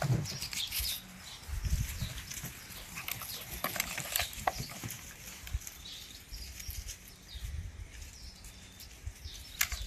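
Pitbull puppies scuffling and play-wrestling on dry grass and leaves: irregular rustling and scratching, with scattered short clicks.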